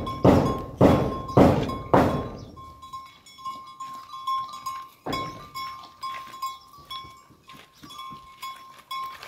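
A run of heavy blows, about one every half second, ending about two seconds in. Lighter irregular knocks follow, over a thin steady ringing tone.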